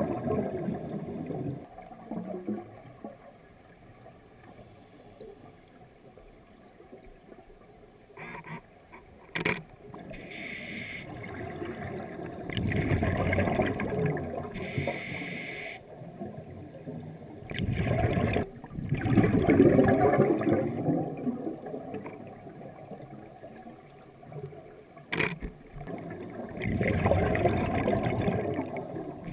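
Scuba regulator breathing heard underwater: about four long rushes of exhaled bubbles, several seconds apart, with softer inhalation hiss between them. A few sharp clicks, about 8, 9 and 25 seconds in, from the still camera firing in its underwater housing.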